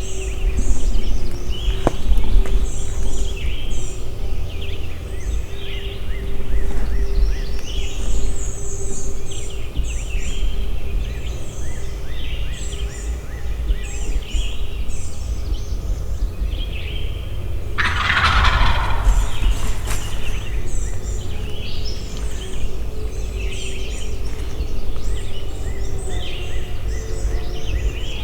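Wild turkey gobbler gobbling once, a rattling call of about a second and a half, about two-thirds of the way through, while songbirds chirp throughout over a steady low rumble.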